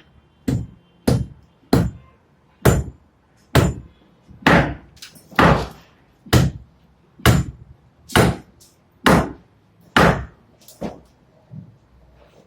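A carpenter's hand tool working wood: about a dozen short, sharp strokes in a steady rhythm, roughly one every 0.8 s, growing fainter over the last couple of seconds.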